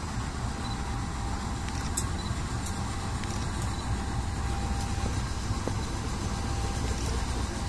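Two diesel locomotives at the head of a passenger train running with a steady low rumble, with a few faint clicks over it.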